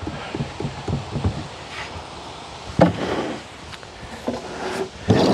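Plastic beehive frames being nudged into place in a wooden hive box: a run of light clicks and taps, then one sharper knock about three seconds in and a louder rustling burst near the end.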